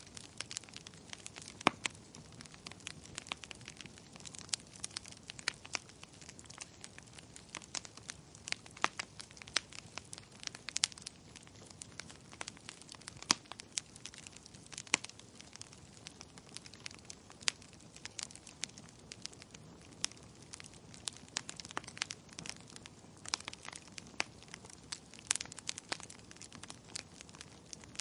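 Wood fire crackling in a fireplace: irregular sharp pops and snaps, several a second, over a soft steady hiss of burning.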